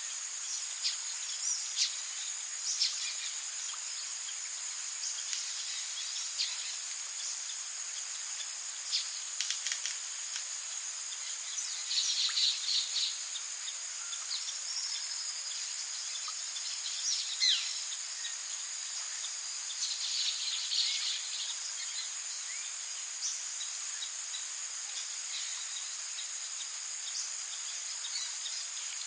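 Tropical rainforest ambience: a steady high-pitched drone of insects, with scattered short bird calls, loudest about twelve and twenty seconds in, over a faint even hiss.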